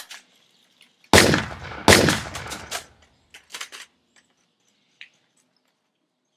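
Two loud gunshot sound effects, about a second in and under a second apart, each with a long fading tail, followed by a few faint clicks.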